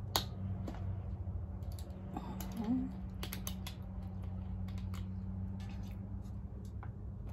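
Eating sounds close to the microphone: scattered sharp clicks and crackles of food being handled and chewed, over a steady low hum.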